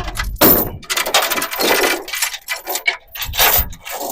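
Metal tie-down chains rattling and clinking, with scraping, as a machine is chained down on a trailer.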